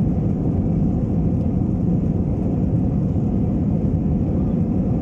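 Steady low rumble of a jet airliner's engines and airflow, heard inside the passenger cabin while the plane climbs out after takeoff.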